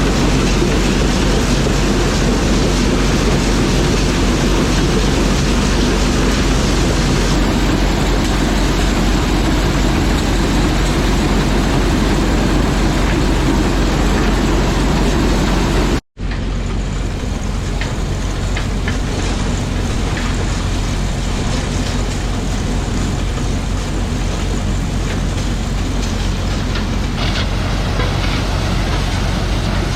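1970s White 1210 corn sheller running loud and steady, shelling cob corn, with a dense rattling din over a low drone. It breaks off for an instant about halfway, then carries on a little duller.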